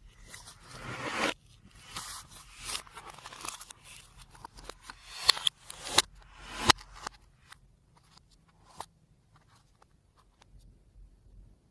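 Slime being mixed with makeup by hand: crunching, crackling and scraping, with a few sharp clicks about five to seven seconds in. It goes almost quiet for the last few seconds.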